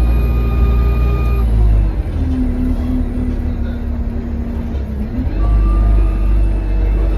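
Alexander Dennis Enviro200 bus engine pulling under load with a high turbo whistle over the rumble. The uploader puts the whistle down to a turbo leak. About a second and a half in, the power eases off and the whistle fades; it comes back on power with the whistle rising again about five seconds in.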